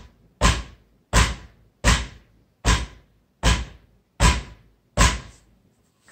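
Butt of a Browning AB3 bolt-action rifle banged hard against a hardwood floor seven times, about 0.7 seconds apart, stopping shortly before the end. It is a bump test of the unloaded rifle, checking that its newly lightened trigger spring does not let it fire.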